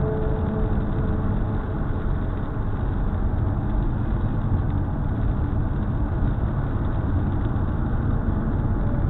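Steady road and engine noise inside a car cruising on a wet highway, with tyre hiss from the rain-soaked pavement.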